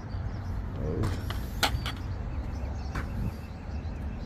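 A handful of sharp clicks and knocks about a second to three seconds in, from hands working on the rooftop AC unit's metal cabinet, over a steady low rumble, with faint bird chirps.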